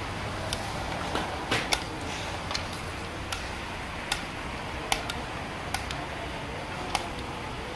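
Irregular sharp clicks and knocks of a steel dish striking steel platters as rice pulao is scooped and served, about ten in all, over a steady background hum.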